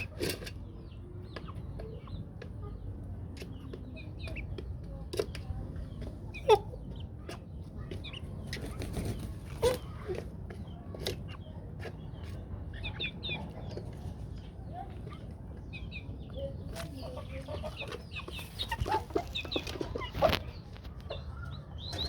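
Aseel chickens clucking in short, scattered calls, with sharp knocks now and then over a low steady rumble.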